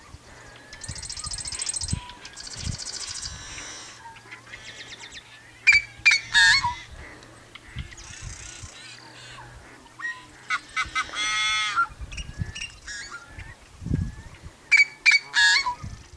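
Yellow-headed blackbird calling: harsh buzzy rasps and short loud squawks, with one long grating rasp about eleven seconds in. The call is one that some liken to a rusty farm gate opening.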